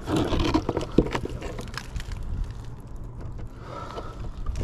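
Magnet-fishing rope and a rusted metal piece on the magnet scraping and knocking against the concrete edge of a bridge as it is hauled up, with a couple of sharp knocks about a second in.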